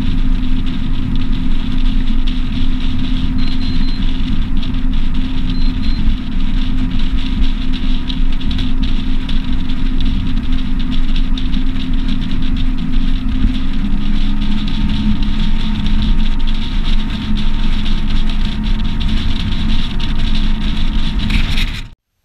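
Bass boat's outboard motor running under way, a steady engine note over a loud rushing wash. The note drops slightly about two thirds of the way through, and the sound cuts off abruptly near the end.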